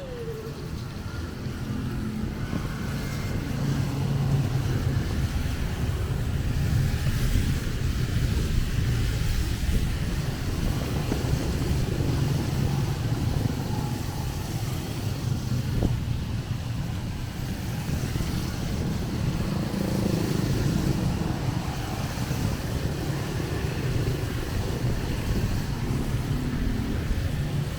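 Road traffic passing on a wet road in steady rain: tyre hiss and engine rumble that swell as vehicles go by, over a constant rain hiss.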